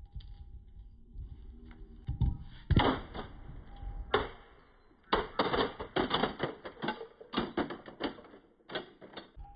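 Rapid, irregular clicking and clattering of hard objects on a concrete floor. It comes in a short burst about two seconds in and another around four seconds, then runs almost without a break through the second half.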